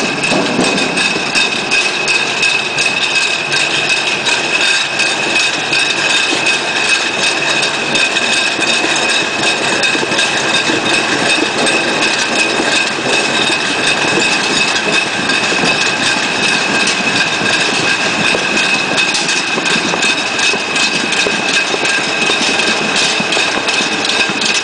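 Cherry tomato roller grading machine running: a steady dense rattle of its turning rollers and drive, with a constant high whine.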